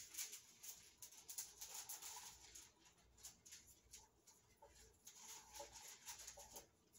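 Faint scratchy rustling and light clicks of plastic being handled, as small plastic cups are set out on a plastic-covered table. The sound stops shortly before the end.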